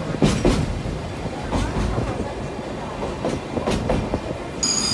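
Sagano Scenic Railway trolley train running, heard from aboard: a steady rumble with irregular clacks of the wheels over the rail joints. Near the end a high, steady steel wheel squeal sets in.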